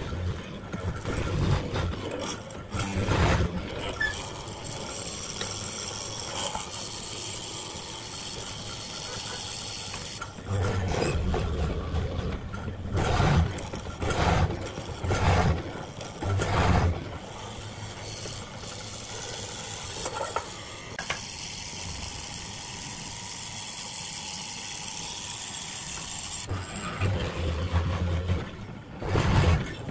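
Hollow-chisel mortiser running with a steady motor hum, its square chisel bit plunged again and again into a wooden chair leg to cut a mortise, each plunge a louder burst of cutting noise. The cuts come in groups, with a run of quick plunges in the middle.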